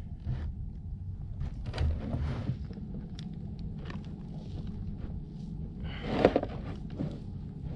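Knocks and rustles of a large fish being handled and shifted about on a kayak over a steady low rumble, with one louder rustling thump about six seconds in.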